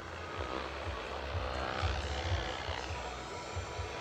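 Turbine-powered RC scale model of an AgustaWestland AW139 helicopter in flight: a turbine whine that rises and then falls in pitch around the middle, over an uneven low rumble.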